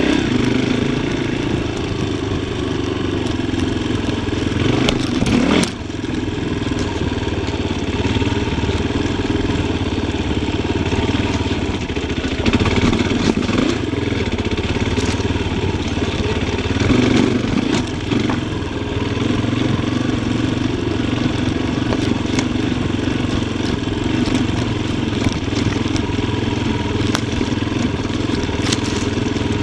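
Yamaha Tricker XG250's single-cylinder four-stroke engine running at low speed, the throttle opening and closing as the bike is ridden over forest ground. Occasional clattering knocks come through over the engine, with a short drop in engine sound about five and a half seconds in.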